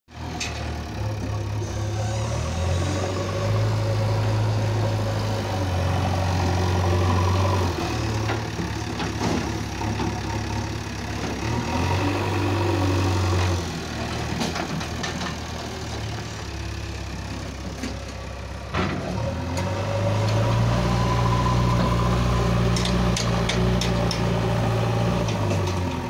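JCB 3DX backhoe loader's diesel engine running, revving up and dropping back several times as the front loader bucket lifts and digs sand, with one sharp metallic clank about three quarters of the way through.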